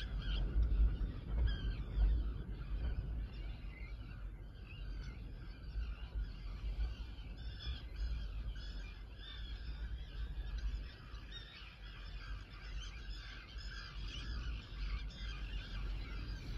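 A background chorus of wild birds: many short chirps and song phrases overlapping, over a low rumble.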